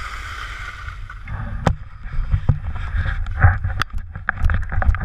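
Skis sliding over snow, a steady hiss that fades out about a second in as the skier stops. Then come irregular clicks, knocks and rubbing from the handheld camera pole being handled.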